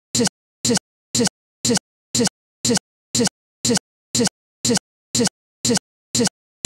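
A split-second fragment of a voice repeating about twice a second with dead silence between each repeat: a stuck digital loop in the recording.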